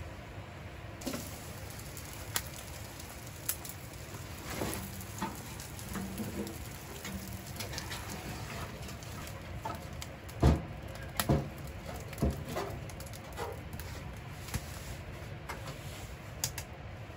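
Kindling catching in a small sheet-steel wood stove, crackling and popping over a steady rushing waterfall. A few heavier knocks come in the middle as wood is handled in the firebox, and small metal clicks near the end as the stove door is shut and latched.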